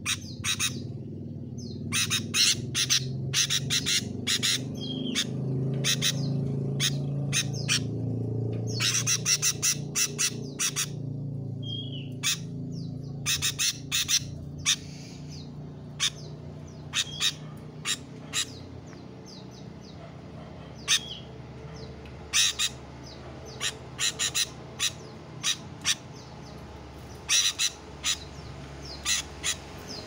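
Sooty-headed bulbul (kutilang) calling in repeated bursts of short, harsh chattering notes, with a few brief whistled notes mixed in. A steady low rumble runs underneath.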